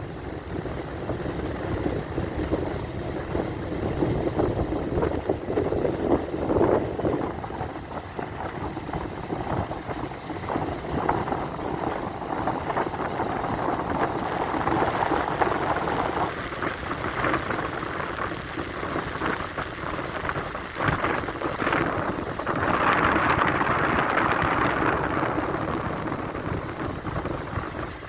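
Rushing noise of wind and sea water, swelling and easing, loudest about three quarters of the way through.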